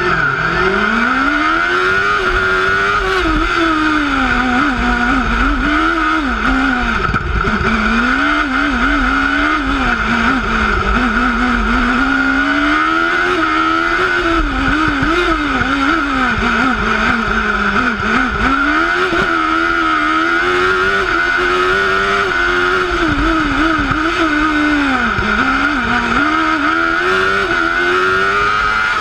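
Onboard sound of a single-seater formula race car's engine pulling away from the start, its pitch climbing steeply in the first two seconds. It then revs up and down over and over through gear changes and lifts for corners.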